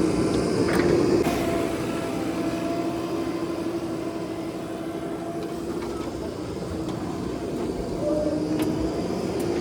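Diesel engine of a JCB 3DX backhoe loader running steadily while it works. It eases off through the middle and picks up again near the end, with a few light knocks.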